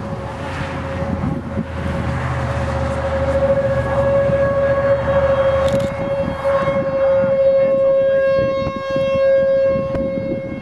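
Outdoor tornado warning siren sounding one steady tone, rising and falling a little in loudness, over a low rumble of wind.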